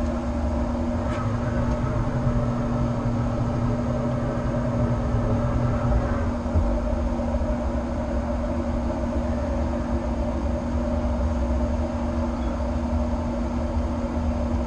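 Steady machine hum holding two constant tones over a wavering low rumble, as from a running fan or motor close to the microphone. A light knock comes about six seconds in.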